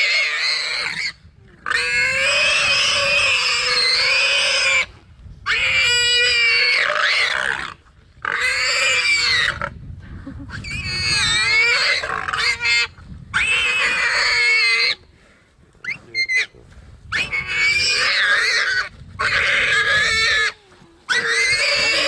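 Warthog screaming in distress while a leopard pins it down and bites into its chest: a string of loud, high-pitched squeals, each lasting one to three seconds, with short breaks between them.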